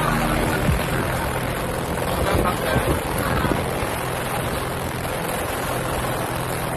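Small passenger boat's engine running steadily under way, a low even hum.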